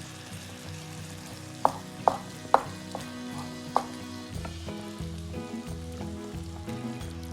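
Food sizzling in a tajine with a steady hiss, with four sharp clinks between about one and a half and four seconds in. Background music with a low, stepping bass line runs underneath and turns rhythmic in the second half.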